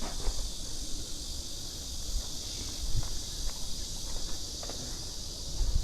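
Steady high insect chorus, with scattered footsteps and a low rumble underneath.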